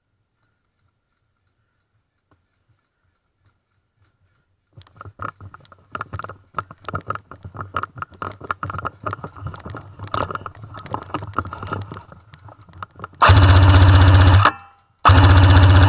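Airsoft M60 electric machine gun firing two long full-auto bursts near the end, very loud and steady-pitched, each over a second long. Before them come several seconds of irregular knocks and rattles.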